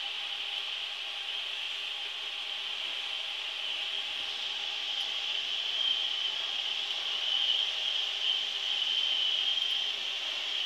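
Strands of besan sev dough sizzling as they deep-fry in hot refined oil: a steady hiss that grows a little louder about halfway through as more dough is pressed into the oil.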